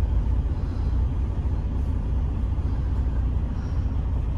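Diesel semi-truck engine idling: a steady low rumble, heard from inside a truck cab.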